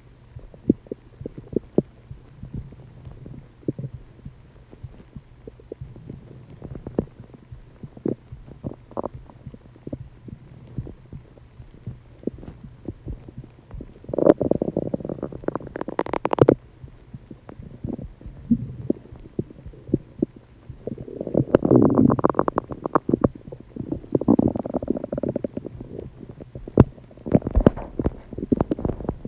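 Human stomach and intestines gurgling: scattered small pops and squelches, then two longer, louder gurgling rumbles, one about halfway through and one lasting several seconds after about 21 seconds in.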